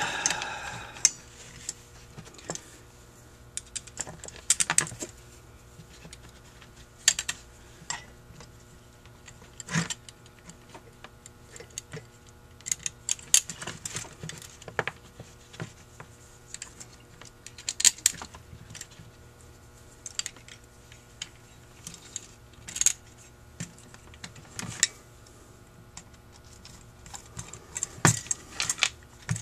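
Irregular light metallic clicks and taps as the parts of a Holley 2280 two-barrel carburetor are handled and fitted by hand, with no steady rhythm.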